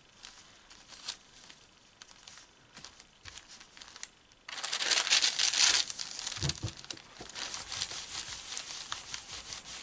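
Baking parchment crinkling and rustling as it is handled. It is faint at first, turns loud and sudden about four and a half seconds in as a sheet is laid down, then goes on as softer rustling while a clothes iron slides over the paper.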